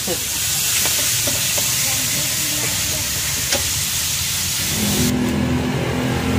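Vegetables and meat sizzling in a steel wok while a metal spatula stirs and scrapes against it. About five seconds in, the hiss gives way to the steady low rumble of the gas wok burner's flame.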